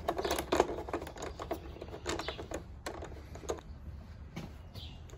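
Irregular clicks and ticks of a hand screwdriver with a T25 Torx bit backing bolts out of a motorcycle's plastic inner fairing, a few clicks a second.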